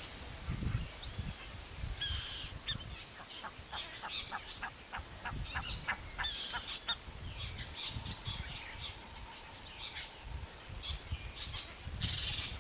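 Buff-necked ibises calling: a rapid run of short, repeated honking notes, several a second, from about two seconds in to about seven seconds, then scattered calls.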